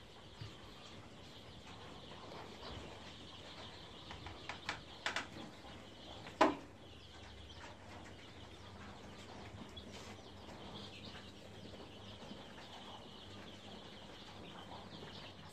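Faint, steady high-pitched peeping of a brood of several hundred layer chicks about five days old. A few brief clicks come about four to six seconds in.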